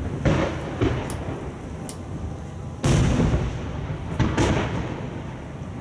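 Aerial firework shells bursting in a quick series of booms, each trailing off in a rolling rumble. The loudest comes about three seconds in, and there are a couple of small high pops in between.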